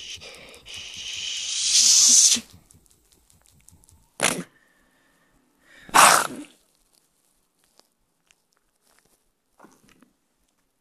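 A person's long, breathy 'hhhhh' exhale, voicing a name made only of the letter H, growing louder until it stops about two and a half seconds in. It is followed by two short, sharp breathy bursts at about four and six seconds, the second the loudest.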